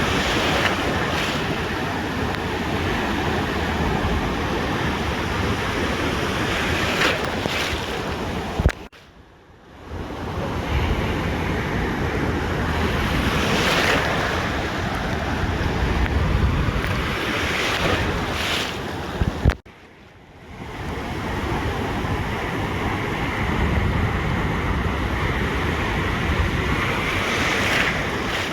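Ocean surf washing onto a beach in a steady roar, with wind buffeting the microphone. It cuts out suddenly twice, for about a second each time, then comes back.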